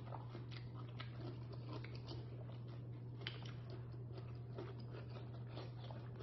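Close-miked chewing of boiled lobster tail meat, with many small irregular mouth clicks over a steady low hum.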